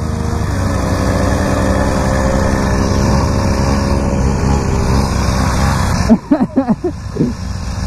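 Mini moto engine dropping in pitch to an idle at the start line, with other motorcycle engines idling alongside. A voice calls out briefly near the end.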